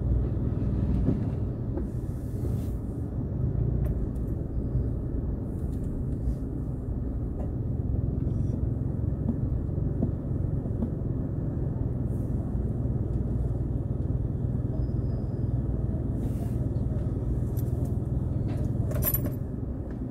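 Steady low rumble of a car's engine and tyres on the road, heard from inside the cabin, with a brief sharp click near the end.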